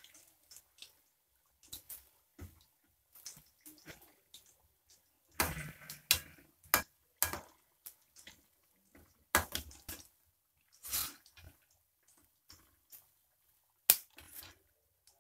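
Garadu (yam) cubes deep-frying in a steel kadai: irregular crackling and spitting of the hot oil, with sharp clicks and scrapes of a metal slotted spoon against the pan as the pieces are stirred and lifted. A few clicks stand out much louder than the rest.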